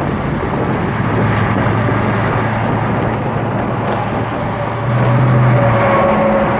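Road traffic going by: a steady rush of tyre and engine noise, with a vehicle's low engine hum growing louder about five seconds in as it passes.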